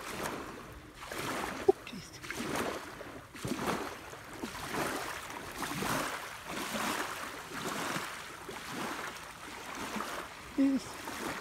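Small waves lapping onto a sandy beach, washing up and draining back in an irregular rush of water and fizzing foam, with a single sharp click about two seconds in.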